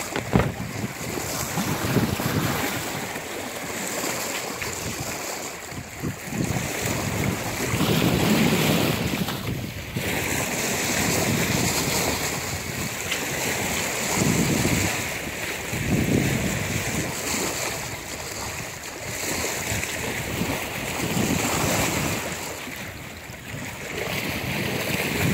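Water washing and splashing along a sailboat's hull, with wind buffeting the microphone. It is a steady rush that swells louder several times.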